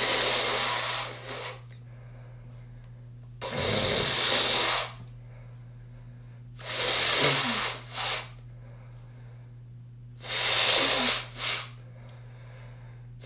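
A person softly blowing their nose, a productive, wet blow. Four blows about three seconds apart, each a hissy push of about a second with a short second puff right after.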